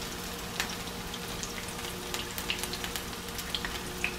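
Shrimp fritters frying in hot oil in a skillet: a steady sizzle with scattered sharp crackles and pops.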